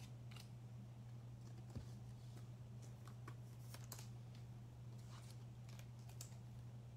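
A few faint, scattered clicks of trading cards and plastic being handled, over a steady low electrical hum.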